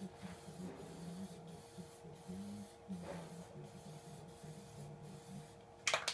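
Aerosol can of black spray paint hissing steadily, the hiss dipping briefly about twice a second. Near the end comes a sudden, louder run of sharp rattling clicks.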